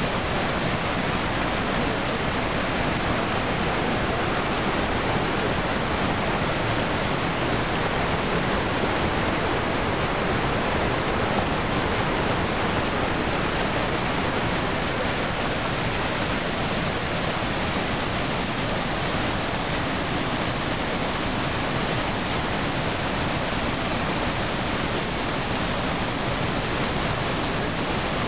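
Whitewater of a fast mountain stream rushing over boulders and pouring over a rocky ledge: a loud, steady rush that does not change throughout.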